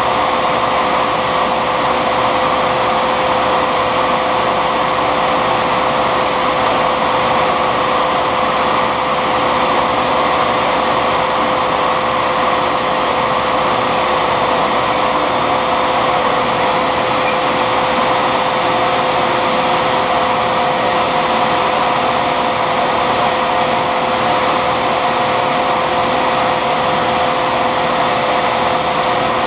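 Shop vac running steadily: a loud, even rush with a steady whine, and a second, higher whine joining about two-thirds of the way through.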